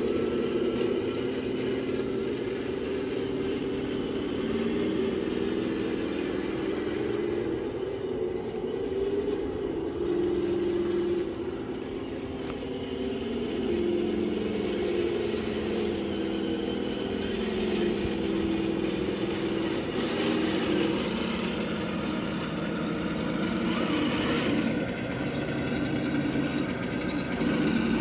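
Heng Long M1A2 Abrams RC tank driving, a steady running hum whose pitch steps up and down as the throttle changes. A short burst of rustling noise comes near the end.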